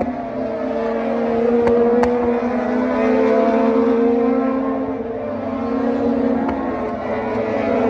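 Several Moto2 race motorcycles with Triumph 765 cc three-cylinder engines running at high revs through a corner, their engine notes overlapping and sliding up and down as they pass.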